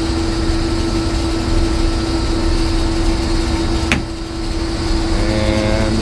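Steady rumble and hum of running grain-bin machinery and an idling engine, with a constant tone throughout. A single sharp click comes about four seconds in.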